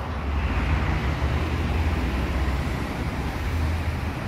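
Street traffic noise: a steady low rumble and hiss of passing cars.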